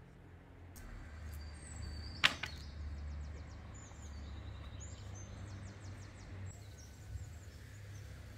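Small birds chirping and trilling in the background over a low steady rumble, with one sharp knock about two seconds in.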